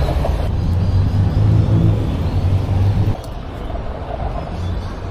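City road traffic: a low vehicle engine rumble that cuts off suddenly about three seconds in, leaving quieter street background noise.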